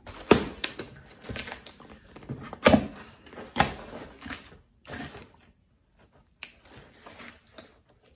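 A cardboard box being cut and pulled open with a Swiss pocket knife: packing tape ripping and cardboard flaps scraping and creaking. There are several sharp rips and scrapes in the first five seconds, then only a few light taps.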